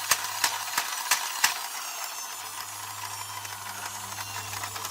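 Toy Thomas the Tank Engine train's mechanism clicking evenly, about three clicks a second. The clicking stops about a second and a half in, leaving a faint steady hiss.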